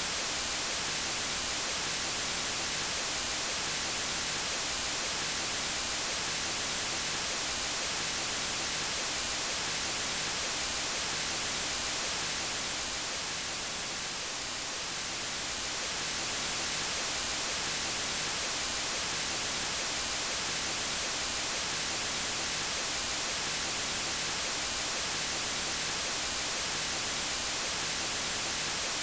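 Steady white noise, a constant even hiss, dipping slightly in level for a few seconds about halfway through.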